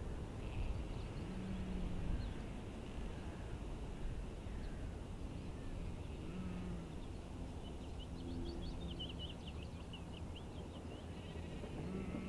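Sheep bleating several times in short calls, over a steady low rumble. A small bird sings a quick run of high chirps about two-thirds of the way through.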